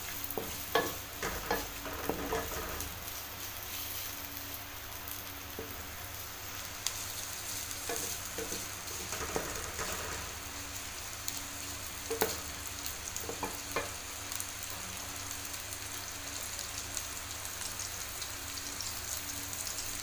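Sliced onions sizzling steadily in hot oil in a metal kadai, with a slotted spatula scraping and knocking against the pan now and then as they are stirred, several times in the first couple of seconds and a few more later.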